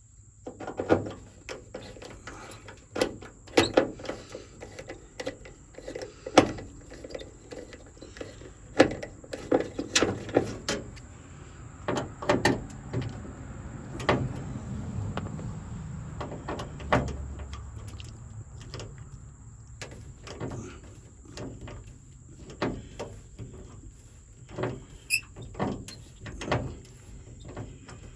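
Irregular metal clicks, knocks and light scrapes as a truck's door handle and lock parts are handled and worked.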